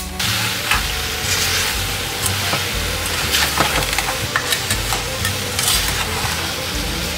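A spoon stirring diced persimmon and sugar in a saucepan on a gas burner, with scraping and irregular small knocks against the pan. Underneath is a steady hiss that comes on right at the start, as the burner flame is lit.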